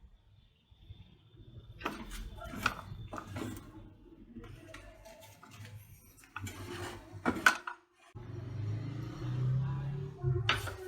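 Sharp clicks and metallic knocks from handling and adjusting a circular saw, coming in short clusters, with a low steady hum for a couple of seconds near the end.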